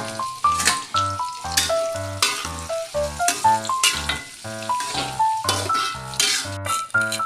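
Food sizzling as it fries in a pan, under background music with a steady beat of about two pulses a second and a bright melody.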